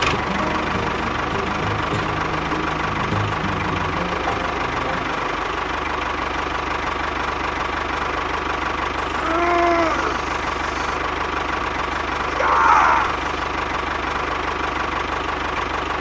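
Tractor engine running steadily. Two short rising-and-falling tones come through it, about ten seconds in and again near thirteen seconds.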